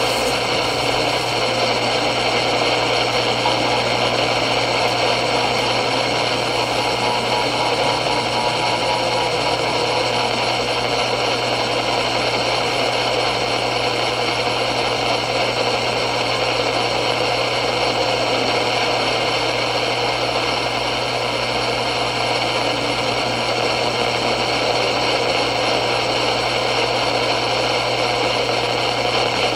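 Steady static from a radio receiver on a weak, distant signal: an unbroken hiss with a constant low hum underneath.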